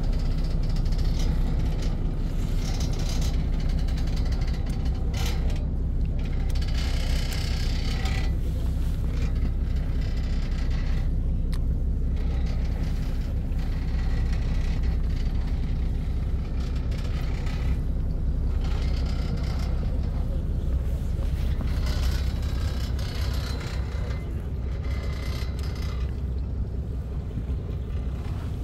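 A fishing boat's engine running steadily with a low hum, with a hiss that comes and goes over it.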